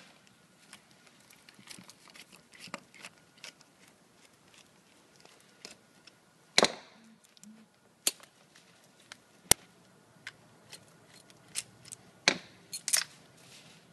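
Irregular light clicks and knocks of metal parts on a Graco Fusion AP spray gun being handled while its fluid manifold is taken off, with several sharper clacks in the second half.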